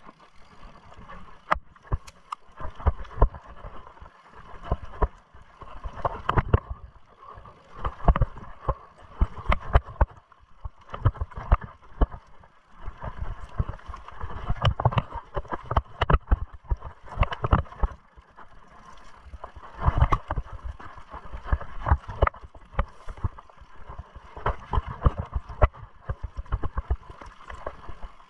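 Mountain bike clattering over a rough trail: a dense, irregular run of knocks and rattles from the bike.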